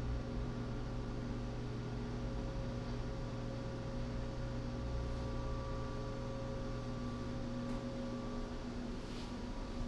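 A steady hum made of several held tones over low, even room noise, with a couple of faint ticks near the end.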